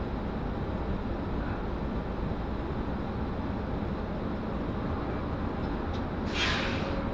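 Steady low rumble of a city transit bus heard from inside the passenger cabin while riding. A brief hiss comes in about six seconds in.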